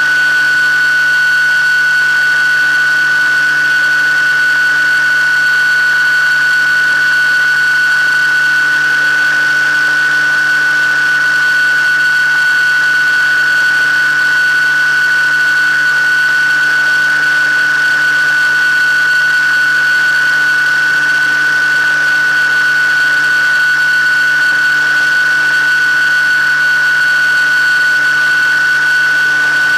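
Motor and propeller of an FPV model aircraft running at a constant steady throttle, heard up close through its onboard camera: an unchanging high whine over a lower hum.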